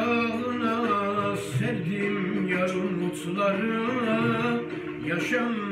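A man singing a Turkish arabesk melody in long, wavering, ornamented held notes with no clear words, over quieter backing music.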